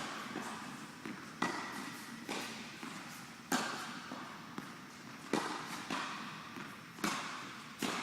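Tennis ball being hit with rackets and bouncing on the court during a rally: sharp pops about once a second or so, some loud and some lighter.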